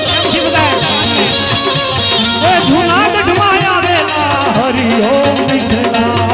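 Instrumental music of an Indian devotional folk song: a melody with sliding, ornamented notes over steady percussion.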